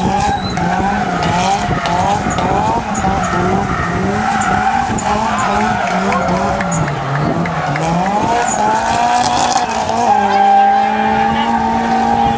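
Drift car sliding sideways: its engine revs hard in quick repeated rising surges while the tyres squeal and skid, and near the end the engine note settles into a steadier hold.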